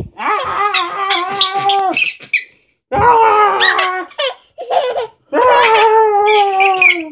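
A baby laughing: three long, high-pitched belly laughs, each a second or more, with short pauses between.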